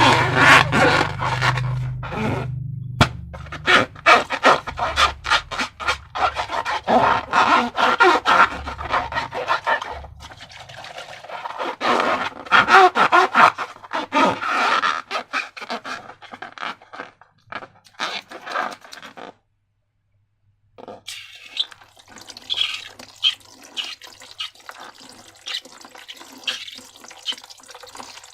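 Slime being squished and worked by hand: a dense run of wet, sticky squelches and small crackling clicks. It breaks off for about a second and a half about two-thirds of the way through, then goes on more softly.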